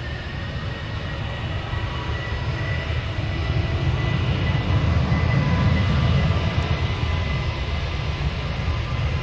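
Jet airliner engines drawing nearer: a low rumble that grows steadily louder, with a high steady whine over it.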